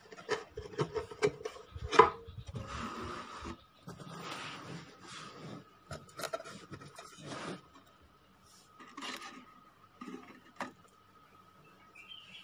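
Rubbing and scraping against a wooden speaker cabinet, with a run of clicks and knocks and one sharp knock about two seconds in. A faint steady high tone runs underneath.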